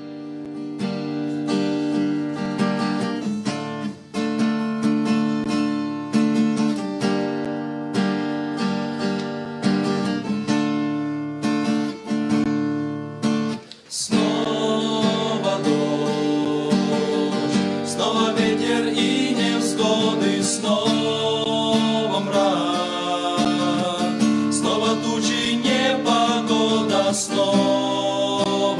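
Instrumental intro of a karaoke backing track: acoustic guitar playing chords. A short break comes about halfway, and then a fuller arrangement enters with a melody line over the chords.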